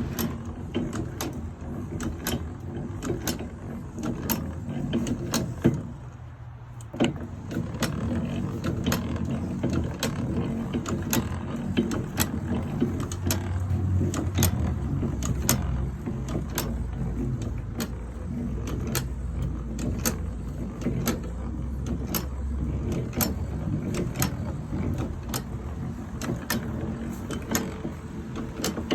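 Old hand-cranked blacksmith's post drill being cranked: the gears turn with a low rumble and a regular click a little more than once a second. The cranking stops briefly about six seconds in, then carries on.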